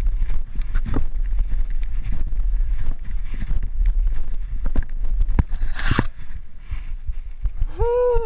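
Wind buffeting the microphone with a steady low rumble, broken by scattered sharp knocks. About six seconds in comes a brief hiss, and near the end a short tone that rises and then falls.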